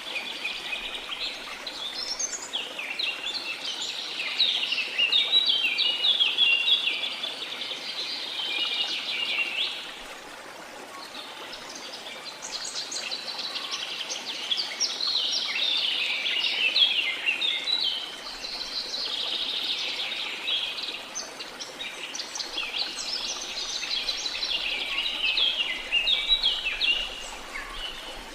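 Birds singing, a dense chorus of rapid chirps and trills in three long bouts with short lulls about ten and eighteen seconds in, over a steady hiss of rushing water.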